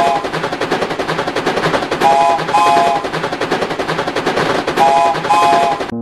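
Steam train sound effect: a fast, even clatter with a short double whistle toot, heard twice.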